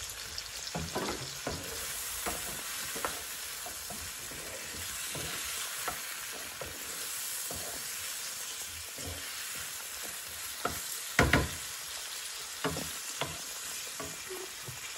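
Aubergine, tomato and pepper pieces sizzling steadily in oil in a frying pan, turned with a wooden spatula, with scattered knocks and scrapes against the pan; the loudest is a pair of clunks about eleven seconds in.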